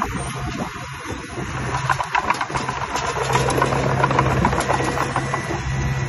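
Small Komatsu D20P crawler bulldozer's diesel engine running under load as it pushes dirt, with a rattle of short clicks and knocks over the steady engine note. It gets louder from about halfway through.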